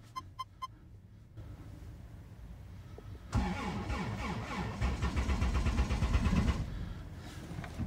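A few short beeps, then a diesel car's starter cranks the engine in the deep cold for about three seconds. The cranking is too slow and too short, and the engine does not catch: a failed cold start.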